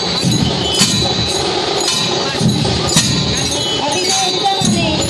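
Small hand cymbals clashing together in a steady beat, about one ringing clash a second, with a crowd's voices underneath.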